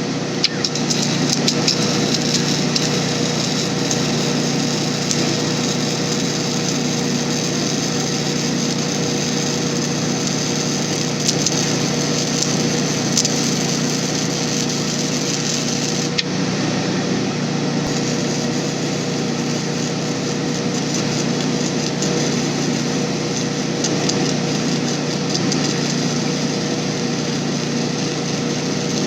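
A small engine running steadily at a constant speed, with a steady hum and a high hiss that changes only slightly.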